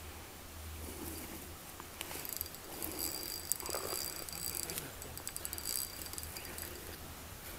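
Insects trilling a steady high note that comes and goes, with scattered faint clicks.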